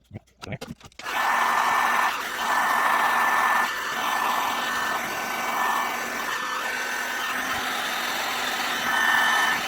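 A few light clicks, then about a second in a handheld electric power tool starts and runs steadily with a whirring, blower-like noise that wavers slightly in level.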